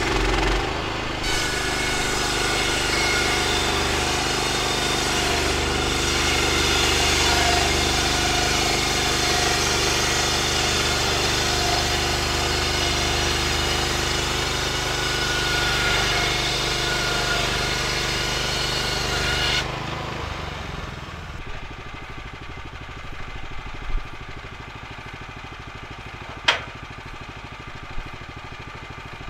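Woodland Mills HM126 band sawmill running at full throttle while its band blade saws through a log, a steady engine drone with a hiss from the cut. About two-thirds of the way in the engine drops suddenly to a quieter idle, and a couple of sharp knocks follow near the end as the sawn wood is handled.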